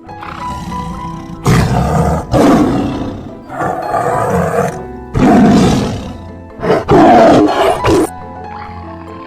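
A series of about five loud animal calls, each under a second or so long, the last two close together, over steady background music.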